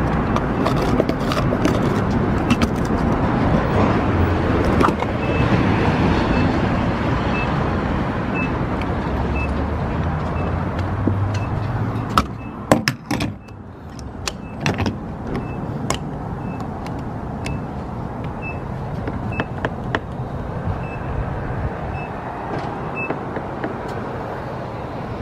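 Car fuel cap unscrewed and a gas pump handled: sharp clicks and knocks come in a cluster around the middle, over a steady rushing noise. A faint high beep repeats roughly once or twice a second through much of it.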